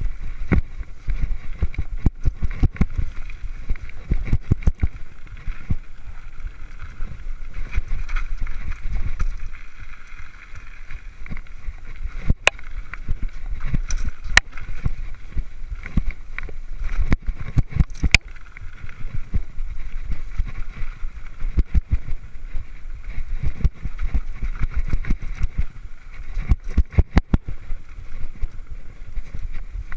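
Mountain bike ridden fast over rough dirt singletrack: low wind rumble on the microphone and a steady hiss, with frequent sharp knocks and rattles as the bike hits bumps and roots.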